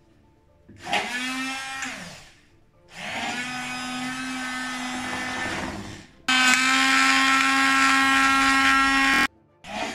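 Hand-held electric immersion blender blending flaxseed oil, milk and honey in a tall glass, run in short bursts. The motor winds down at the end of the first burst, and the third burst is the loudest and cuts off suddenly. A brief fourth burst comes right at the end.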